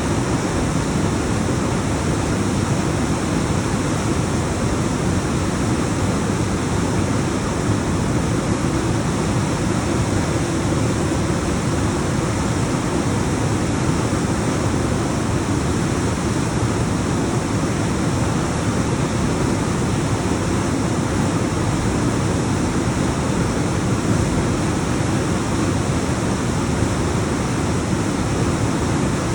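Alpine waterfall cascading over rocks: a loud, steady rush of falling water with no breaks.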